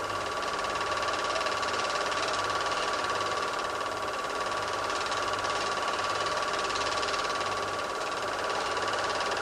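Super 8 film projector running: a steady mechanical whirr with a constant whine and a low hum that pulses about twice a second, over a steady hiss.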